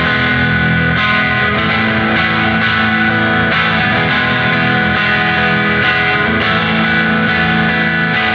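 Electric guitar on single-coil pickups played through the NUX MG-30 multi-effects unit's Morning Drive, a Morning Glory-style overdrive: a lightly driven tone, with notes and chords ringing into each other and new ones struck every second or so.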